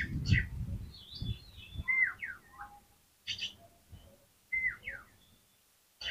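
Oriental magpie-robin (kacer) singing in short separate phrases: sliding whistles mixed with harsh chattering notes, with brief pauses between them. A low rumbling noise sits under the song in the first second or so.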